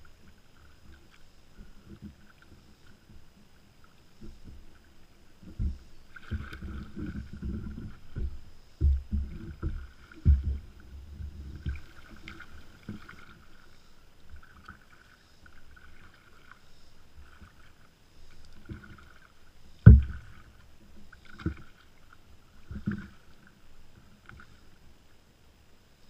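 Kayak paddling: regular soft splashes and drips from the paddle strokes, with a run of low knocks and thumps on the hull and one sharp loud knock about two-thirds of the way in, picked up through the bow-mounted camera.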